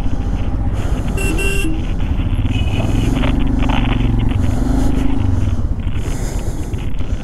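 Royal Enfield Himalayan's single-cylinder engine running at low speed, with a steady pulsing rumble, as the motorcycle creeps along a gravel road. A couple of short horn toots sound about a second in and again near three seconds.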